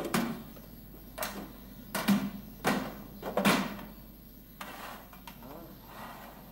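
Several knocks and clunks as things are handled in a metal tin trunk and its lid is shut, the loudest about three and a half seconds in.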